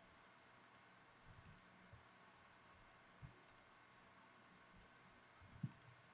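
Faint computer mouse clicks, each a quick double tick of press and release, about four times, with soft low knocks from the hand on the mouse and desk, over a faint steady hiss.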